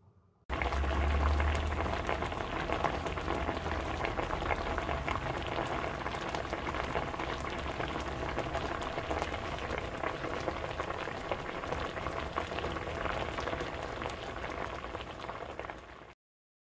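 A steady, dense crackling and hissing noise, thick with tiny pops, starts abruptly about half a second in and cuts off suddenly near the end; a low rumble sits under it for the first few seconds.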